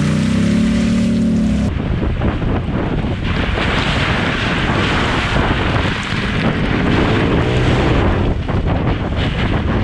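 Toyota 4Runner's 4.0-litre V6 engine pulling through sand, with heavy wind buffeting on the microphone. The engine note is clear for the first couple of seconds, then the sound changes abruptly to mostly wind and rushing noise, with the engine rising in pitch again about seven seconds in.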